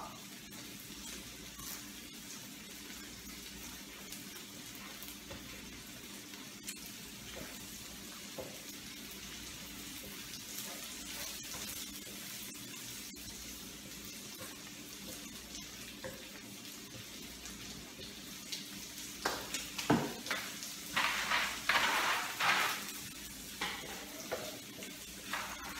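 Onions sautéing in hot oil in a pan, a steady soft sizzle as they soften. Near the end, a few seconds of louder stirring strokes as they are turned in the pan.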